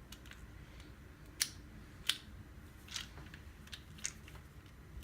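Faint, scattered clicks from a Snap-on ratcheting screwdriver being handled and turned, about five spread over a few seconds.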